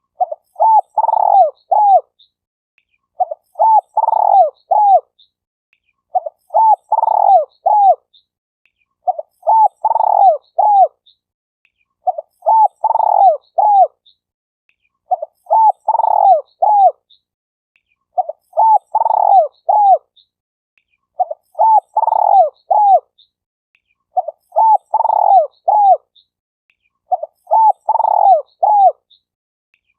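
Spotted dove cooing: a phrase of several low, curving coos repeated evenly about every three seconds.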